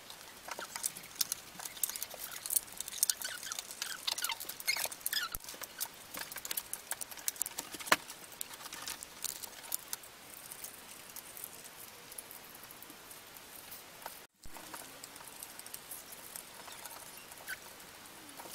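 Paper and card crackling and clicking as 3D card puzzle pieces are pressed out of their sheets and slotted together: many small sharp crackles, thickest in the first half and sparser later.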